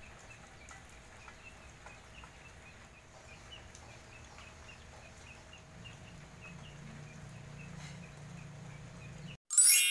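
Steady light rain with a high chirp repeating about three times a second and a low animal call joining about halfway through. It cuts off abruptly near the end, and a loud bright swoosh follows.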